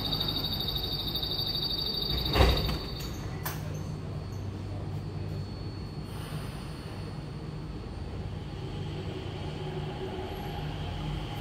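Skytrain platform screen doors and train doors sliding shut: a high-pitched door-closing warning tone sounds, then the doors shut with a loud thud about two seconds in. A steady low hum from the automated train and the platform follows.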